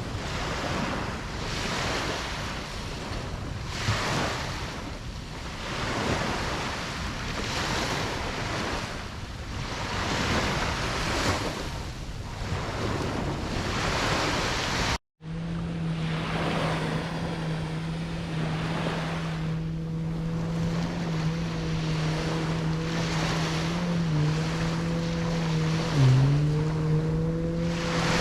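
Ocean waves washing in surges every second or two. Halfway through the sound cuts out for an instant. After that the surf goes on under a steady engine hum, whose pitch dips briefly twice near the end.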